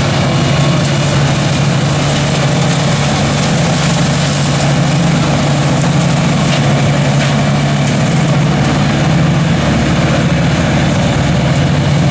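Tractor engine running steadily under load while it drives a heather chopper working through heath: an even low drone with a broad hiss over it.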